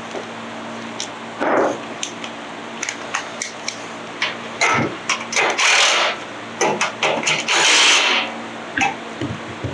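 Hand tools and metal parts being worked while bolting a generator's muffler cover: scattered sharp clicks and clinks, with two longer bursts of scraping noise about six and eight seconds in.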